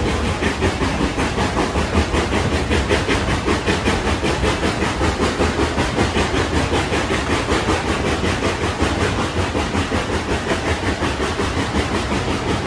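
Narrow-gauge steam locomotive No. 12, a 4-6-0, working ahead of the train, its exhaust chuffing in a quick, even rhythm over the rumble of the flatcar's wheels on the rails.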